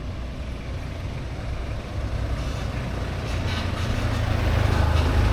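Low, steady hum of a motor vehicle's engine running, growing gradually louder.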